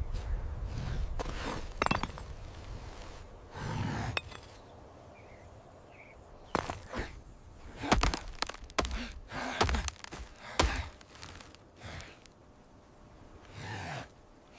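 Hard knocks of rock on rock, then a dead, dry branch cracking and breaking. The loudest cracks cluster about seven to eleven seconds in.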